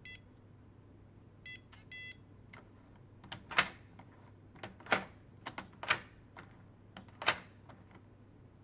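Electronic fingerprint door lock beeping: one short beep as it wakes, then two beeps about a second and a half in as the fingerprint is accepted. A series of sharp clicks and knocks follows from the lock's handle and latch as it is worked.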